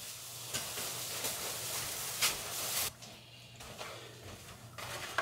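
Reusable shopping bags rustling, with a few light knocks as groceries are carried in and set down on a kitchen counter; the rustling dies down about three seconds in.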